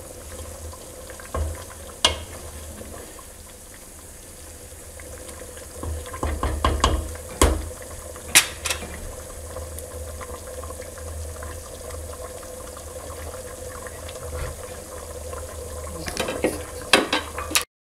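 Pot of tomato-based red bean stew simmering on a gas hob: a steady bubbling hiss, with a few sharp clicks and knocks about two seconds in, around seven and eight seconds, and again near the end.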